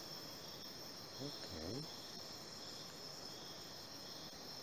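Faint, steady high-pitched insect trilling, with a short soft voice sound about a second and a half in.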